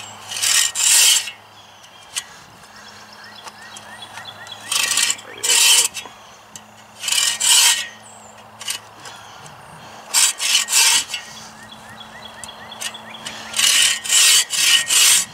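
Sven saw, a folding bow saw, cutting shallow notches across a log in short bouts of two or three strokes with pauses between. These are the depth cuts made before the wood between them is hewn out with an axe.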